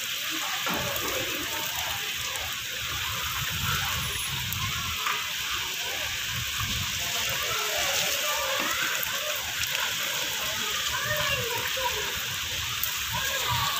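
Heavy rain falling steadily, a constant hiss, with gusty wind rumbling on the microphone. Faint distant voices are mixed in, more toward the end.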